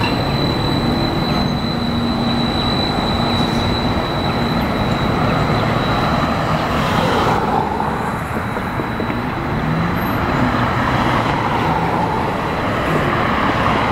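Articulated Seattle streetcar running past close by on its rails, then moving away, over steady city traffic noise.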